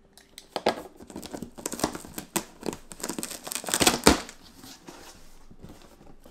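Packing tape ripping away from a large corrugated cardboard box as its top flaps are pulled open: a run of crackling tears that is loudest about four seconds in, then softer cardboard rustling.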